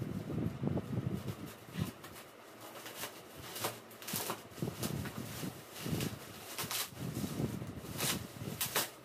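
Black plastic wrapping rustling and crinkling as it is pulled off a packaged tent by hand, in uneven bursts with sharp crackles.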